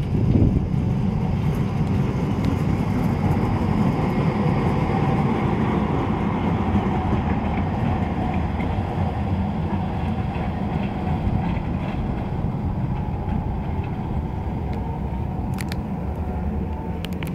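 Long articulated tram rolling past on its rails and pulling away along the terminal loop: a steady rumble that slowly grows fainter.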